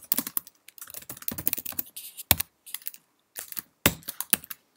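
Typing on a computer keyboard: irregular runs of keystrokes, with a pause of about a second midway and a few keys struck harder than the rest.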